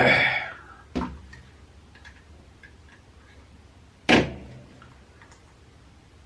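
Hard knocks and clicks from a handheld VHF radio's casing being handled and pulled at to get it open. A loud knock at the start, a sharp click about a second in, and another loud knock about four seconds in, with faint small clicks between.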